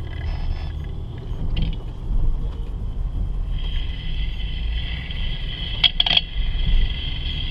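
Steady road rumble inside a moving car, with scratchy noise through a Steelman wireless ChassisEar receiver's speaker, relayed from its channel-two microphone clamped near the brake pads and rotors. A high steady tone comes in about halfway, and two quick clicks sound about six seconds in.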